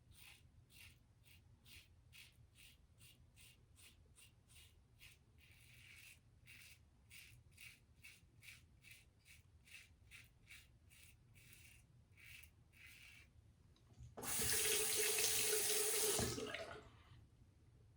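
Safety razor, a Gillette Tech fat handle with a 3D-printed base plate, scraping through lathered stubble in short strokes, about two a second. About fourteen seconds in, a tap runs for about two seconds.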